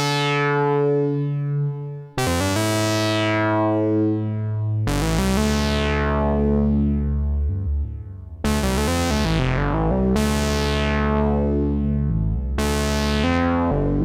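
Homemade analog synthesizer playing a series of sustained notes, each held two to three seconds. Each note starts bright and quickly turns mellow, and the later notes sit lower in pitch.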